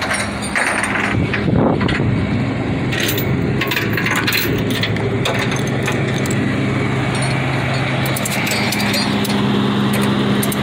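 Flatbed tow truck's engine idling steadily, with a few scattered clicks and crackles in the first half.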